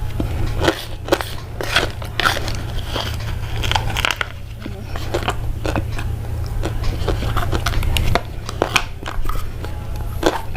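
Close-miked crunching and crackling: irregular sharp clicks, several a second, over a steady low hum.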